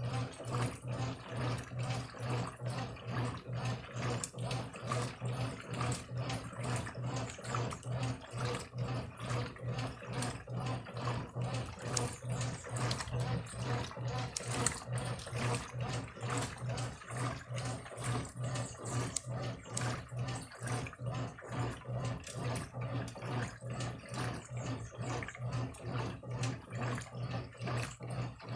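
Brastemp Eletrônica top-loading washing machine agitating: a steady motor hum under rhythmic sloshing of water and clothes, about three strokes every two seconds. Its owner says the machine needs a new capacitor, motor and valve.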